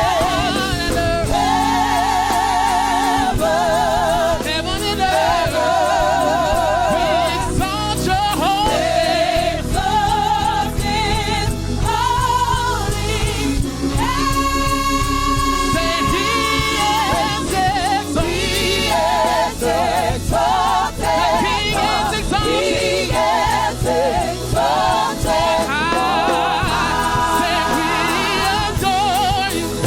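Gospel choir and soloist singing with a live band, sustained notes with wide vibrato over a steady accompaniment.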